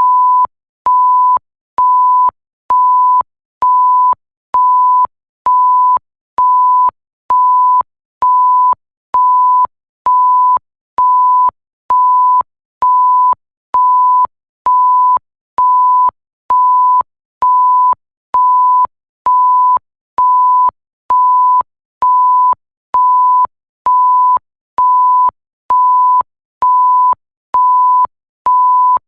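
Bleep sound effect: a single pure tone repeated over and over, each beep lasting about half a second with a short gap, about one a second, with a faint click as each beep starts and stops.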